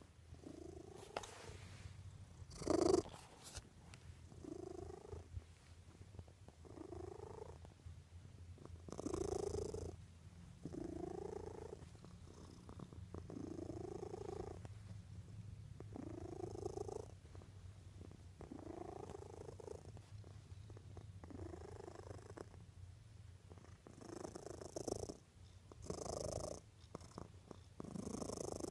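Domestic cat purring steadily, with a rise-and-fall sound on each breath about every two seconds and one louder burst about three seconds in.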